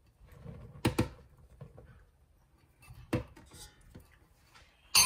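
Sharp knocks of a ceramic bowl against a stainless steel mixer bowl as bread flour is tipped in: a double knock about a second in, another about three seconds in, and the loudest, a ringing clink, near the end.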